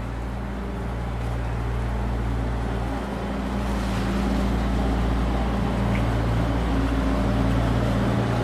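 A motor vehicle engine running steadily with a low hum in several even tones under a rushing noise, slowly growing a little louder.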